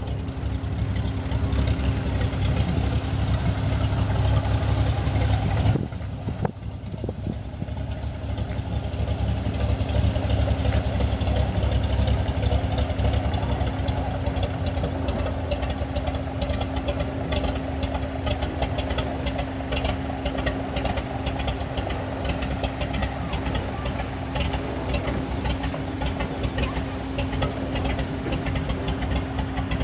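Piston engine and propeller of a single-engine floatplane taxiing on the water at low power, a steady drone. Its level drops sharply about six seconds in, then builds back within a few seconds.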